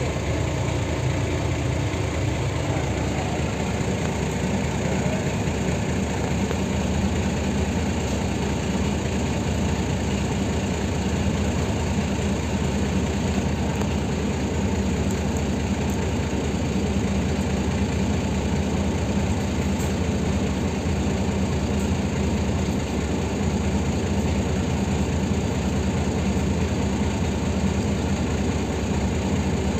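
Diesel engine of a Mercedes-Benz O305 city bus idling steadily, heard from inside the passenger cabin, with a low hum that settles in about two to three seconds in.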